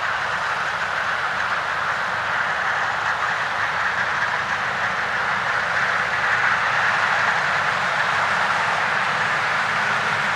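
Ford tractor running while it drives a Vicon Fanex 1103 rotary hay tedder, the spinning rotors and tines tossing cut grass. A steady mechanical noise that grows slightly louder partway through.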